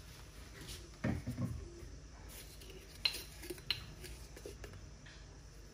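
A few faint clinks and taps of kitchen utensils against a stainless steel mixing bowl as seasoning is added to the flour: a small cluster about a second in, then single clicks around three and nearly four seconds in.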